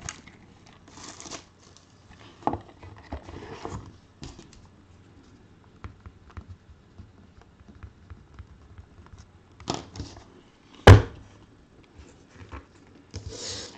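Hands handling small cardboard boxes and packaging: scattered rustling, taps and clicks, with one sharp knock late on.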